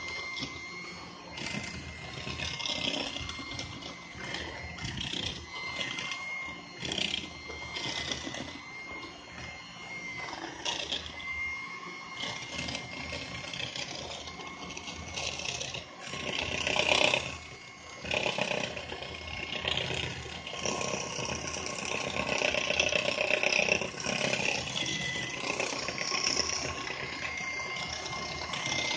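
Electric hand mixer running with its twin beaters in cake batter, beating in eggs: a steady motor whine that wavers slightly in pitch, with irregular rattles throughout.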